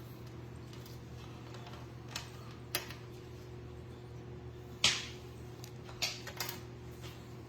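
A handful of short clicks and taps, the loudest about halfway through, from charging cables and their plugs being handled and laid down on a surface, over a steady low hum.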